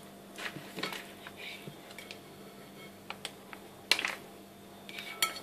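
A plastic spatula scraping and tapping against a bowl and rustling a plastic piping bag while pastry cream is filled into the bag: scattered light clicks and scrapes, the sharpest about four seconds in.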